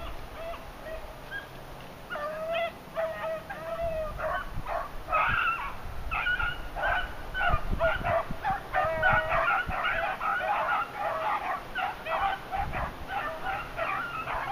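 A pack of beagles baying on a rabbit's trail. A few calls come first, then several voices overlap thickly from about four seconds in.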